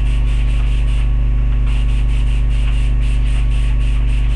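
Loud, steady electrical mains hum with its overtones, picked up by the recording. Above it are faint, rapid, evenly spaced hissy pulses.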